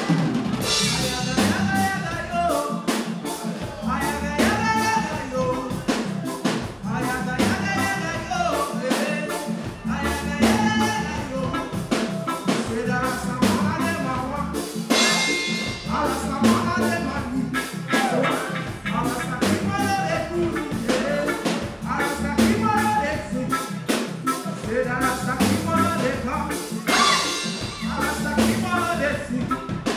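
A woman singing live into a microphone over a full reggae band: drum kit, electric guitars and keyboards keeping a steady beat.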